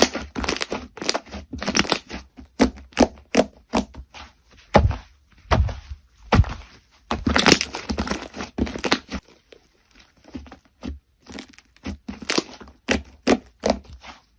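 Crunchy slime being worked by hand, giving rapid irregular crackles and pops in clusters, with a short lull partway through.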